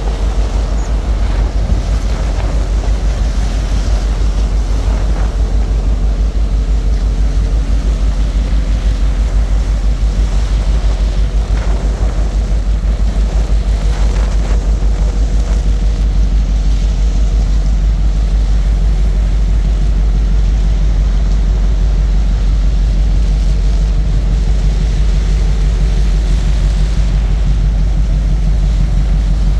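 Deep, steady machine rumble with a rapid even pulse, and a faint steady hum above it.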